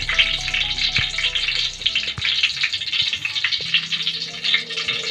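Chicken wings deep-frying in hot oil at about 170 °C, a steady crackling sizzle.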